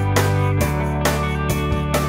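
Background music: a guitar strummed in an even rhythm, about two strums a second, over steady bass notes.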